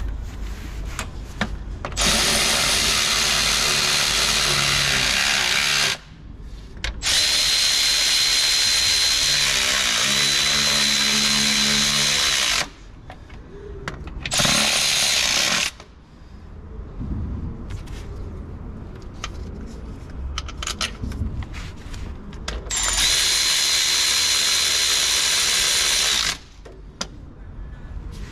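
Handheld power tool driving in fixings under the car, running in four bursts of a few seconds each with a steady high whine through each. Small clicks and knocks of handling in between.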